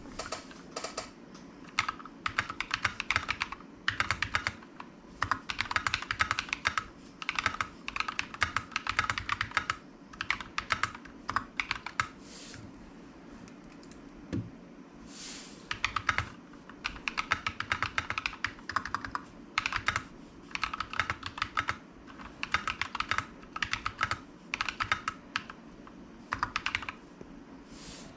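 Typing on a mechanical keyboard with Glorious Holy Panda tactile switches: rapid runs of keystrokes in bursts of a second or two, with short pauses between them.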